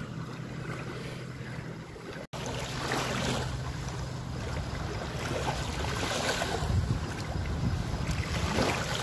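Small lake waves lapping and washing up onto a sandy shore, swelling a few times, with wind buffeting the microphone. The sound cuts out for an instant about two seconds in.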